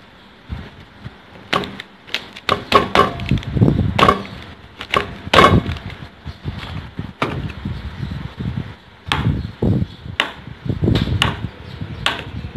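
Irregular knocks and taps on a wooden chopping board as a block of tofu is knocked out of its plastic tray and a cleaver and other kitchen things are handled on the board, busiest in the first half.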